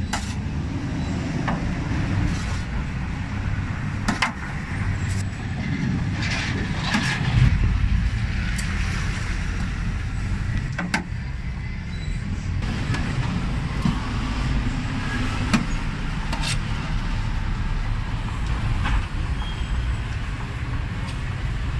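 Steady rumble of passing street traffic, with sharp knocks now and then from a cleaver chopping pig's head meat.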